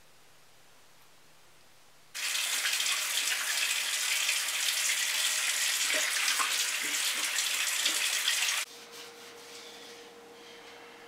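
Kitchen faucet running into the sink, a loud steady rush of water that starts about two seconds in and cuts off suddenly about six seconds later, leaving a faint steady hum.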